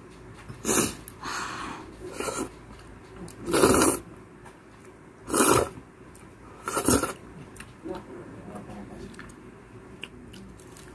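Close-up mouth sounds of eating Bisaya vegetable soup (law-uy) from a bowl: six loud slurps spread over about seven seconds, then quieter chewing.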